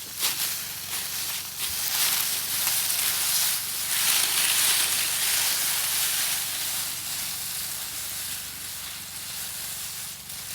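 Steady sizzling hiss from a campfire cooking pork ribs. It swells a couple of seconds in, is loudest around the middle, then slowly eases.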